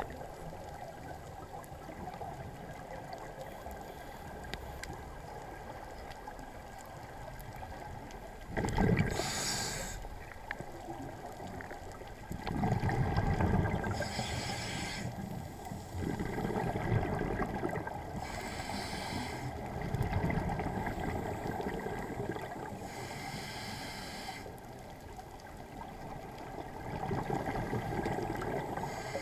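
Scuba diver's regulator breathing underwater: exhaled bubbles burst out in loud rushes every few seconds from about eight seconds in, over a steady muffled low noise.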